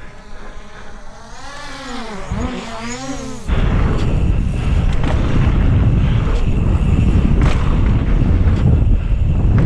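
Racing FPV quadcopter's motors whining, the pitch swooping up and down with the throttle. About three and a half seconds in it cuts off sharply to loud wind rumble on the microphone.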